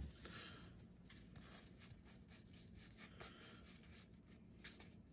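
Near silence: room tone with faint rustles and light ticks of trading cards being handled.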